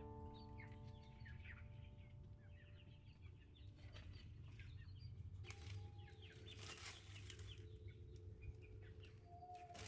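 Faint chickens clucking and chirping, with a couple of brief rustling bursts about halfway through.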